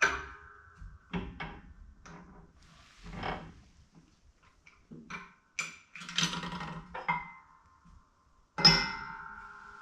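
Metal parts and tools knocking and clanking together in a workshop, with a series of sharp knocks. A strike at the start and a louder one near the end each ring on with a clear, bell-like metallic tone.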